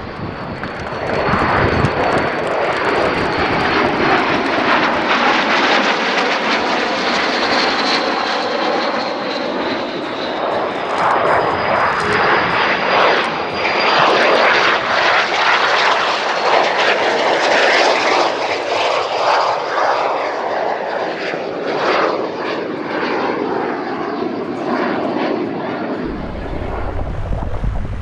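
Aircraft engine noise from a fixed-wing aircraft flying over, loud and sustained, with sweeping tones that rise and fall as it passes. It eases a little near the end.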